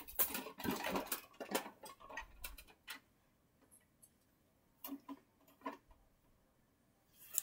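Light clicks, taps and rustles of toys being handled, a quick run of them through the first few seconds, then only a few scattered clicks.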